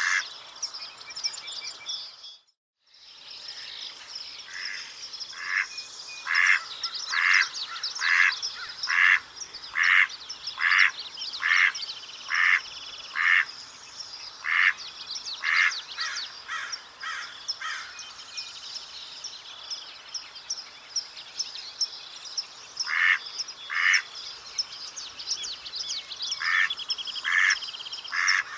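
Mallard quacking in long runs of evenly spaced quacks, about two a second, with pauses of a few seconds between runs; small songbirds sing steadily behind. The sound cuts out briefly near the start.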